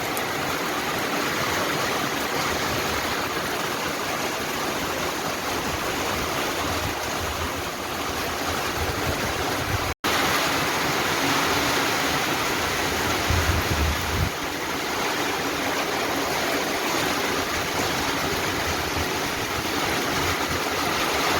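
Heavy rain pouring down in a storm, a loud steady hiss. It breaks off for an instant about ten seconds in.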